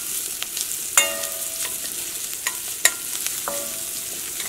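Stainless steel ladle stirring chopped vegetables and mustard seeds frying in oil in a stainless steel pan: a steady sizzle with several clinks of metal on metal, some of them ringing briefly, the loudest about a second in.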